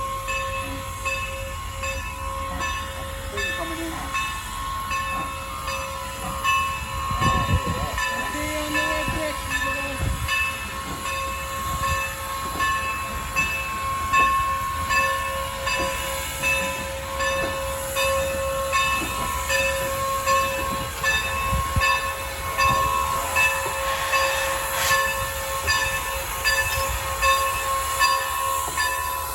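Norfolk & Western #475, a 4-8-0 steam locomotive, working close by. It gives a steady whine with a rhythmic pulsing at roughly one beat a second, and a few heavy low knocks about a quarter of the way in.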